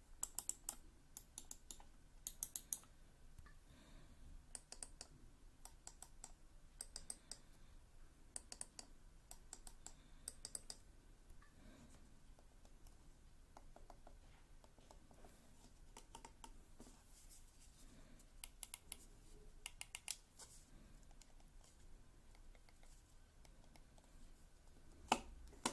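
Computer mouse buttons clicked in quick runs of several clicks, with short pauses between runs. The runs in the middle are fainter, and there is one louder click near the end.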